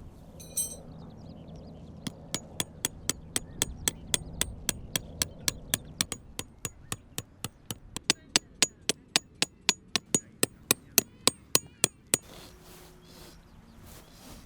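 Rapid, evenly spaced strikes of a hammer-like tool with a bright metallic ring, about four or five a second, growing louder about eight seconds in and stopping abruptly near the end.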